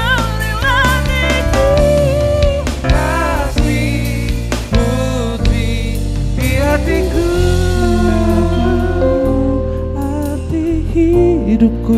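A live band of electric guitar and keyboard playing a song, with a man singing into a microphone over it.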